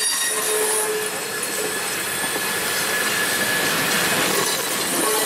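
Heritage passenger coaches of a steam excursion train rolling past close by: steady wheel-on-rail noise with thin squealing tones and some clickety-clack over the rail joints.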